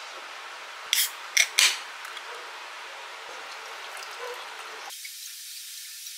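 Can of Lemon-Dou lemon sour cracked open, three sharp hisses about a second in, then the fizzy drink poured into a glass.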